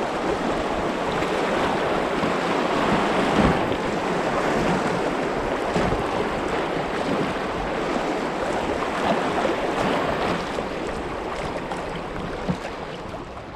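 River water rushing over a riffle or rapid, a steady loud rush with a few short knocks and splashes, easing off near the end.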